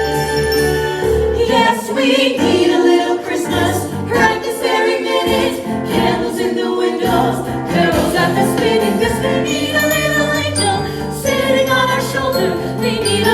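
Upbeat Christmas music with jingle bells, a stepping bass line and sung or choir-like vocals, playing for a dance number.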